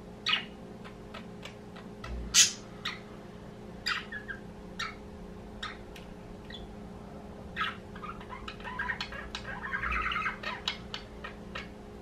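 Pet budgerigars calling: a run of short, sharp chirps, with a stretch of quicker warbling chatter in the last third.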